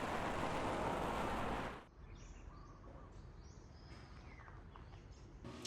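A steady rush of falling water that cuts off abruptly about two seconds in. It gives way to quieter outdoor ambience with a few faint bird chirps.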